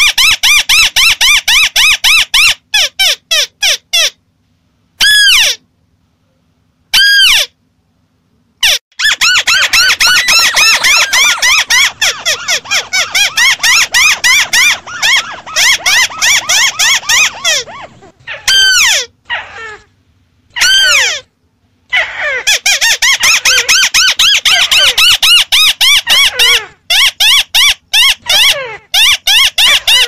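Crakes (tikusan), of the kind pictured as white-browed crakes, calling in a busy chorus of rapid, chattering runs of short arched notes, several birds overlapping. In the first few seconds the chatter breaks off, and two single sweeping calls come in the pause. This is a bird-lure playback recording meant to draw crakes in.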